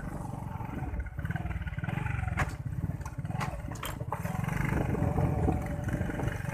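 Small motorcycle engine running steadily under wind rumble on the microphone, heard from the pillion seat, with cloth rubbing against the phone and a few sharp clicks around the middle.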